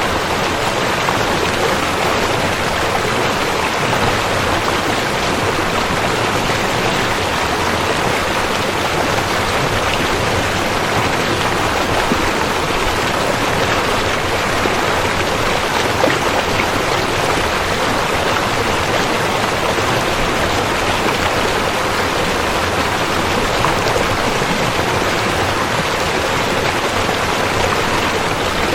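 River water flowing steadily over rocks, a constant rushing with small splashes.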